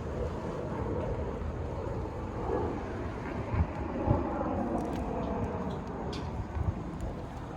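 Outdoor city background: a steady rumble of distant traffic, with a few brief knocks about halfway through and again near the end.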